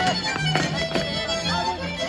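Lively Romanian folk dance music: a sustained fiddle-like melody over short repeated bass notes, with sharp accents about every half second.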